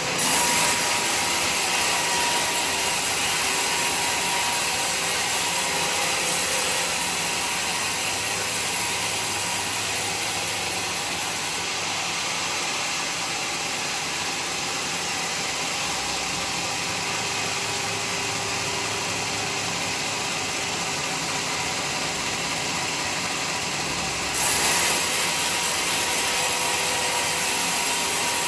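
Band sawmill running steadily, a dense, even mechanical noise. It gets louder right at the start and again a few seconds before the end.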